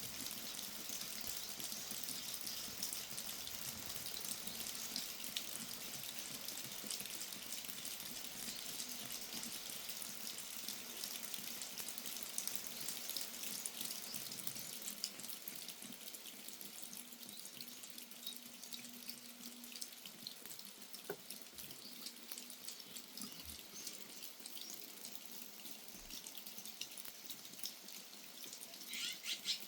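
Steady rain falling and dripping, a continuous hiss with many small drop hits, easing slightly about halfway through. A brief high chirp comes near the end.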